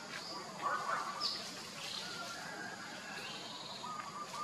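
Repeated short, high chirps and squeaky whistled calls from animals, a few each second, over a steady background hiss.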